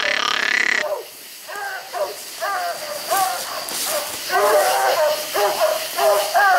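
Coonhounds barking treed: short chop barks, each bending up and down in pitch, about two a second, with several dogs overlapping, starting about a second and a half in. Before that, a steadier, noisier sound cuts off abruptly about a second in.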